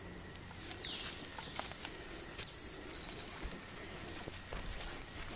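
A bird calling: a short high note falling in pitch, then a high buzzy trill lasting about a second, with another trill near the end. Faint ticks and scrapes from a dull knife working a salmon underneath.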